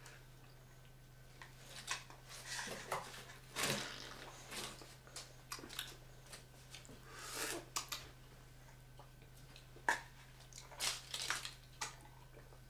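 Faint scattered rustles and small clicks of handling a small coconut-water carton, its straw worked into the carton and drunk from, with loose paper packing rustling underfoot, over a steady low hum.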